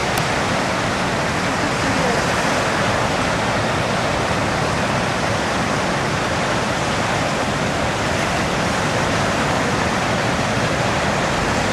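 Ocean surf breaking in a steady, continuous wash of noise.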